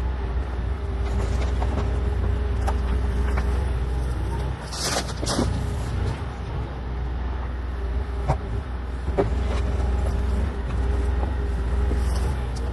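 Bobcat E40 compact excavator's diesel engine running steadily, with a held hydraulic whine, a few sharp clanks and a short loud scraping burst about five seconds in.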